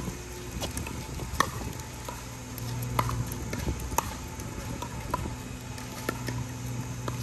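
Pickleball paddles hitting a plastic pickleball in a doubles rally: sharp pops about a second apart, the loudest three a little over a second in, at three seconds and at four seconds, with softer hits between. A low steady hum runs underneath.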